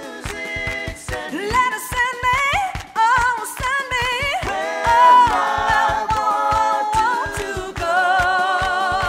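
Background music: several voices singing together over a steady beat.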